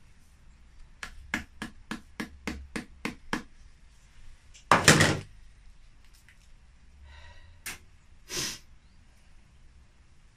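Handling a clear plastic box: a quick run of about nine light clicks, then the box set down on the wooden bench with one short, hard knock, the loudest sound here. Smaller handling knocks follow near the end.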